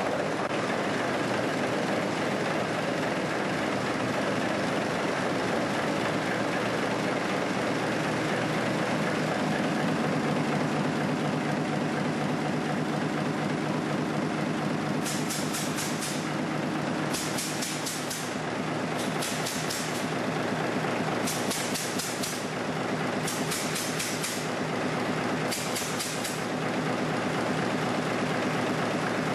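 Large six-cylinder diesel engine running steadily with a fast, even rhythmic beat. In the second half there are six short hissing bursts, about two seconds apart.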